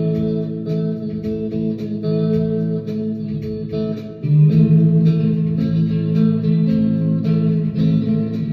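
Electric guitar with Fender '57-62 pickups played with a slide in the key of A: picked notes ringing over sustained low notes, with a louder low note or chord struck about four seconds in.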